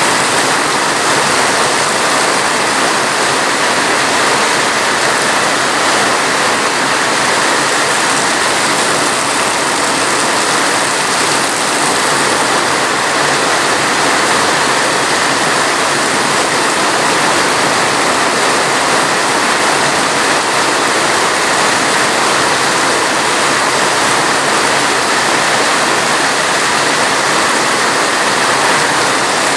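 Steady rain, a dense even hiss with no separate drops standing out.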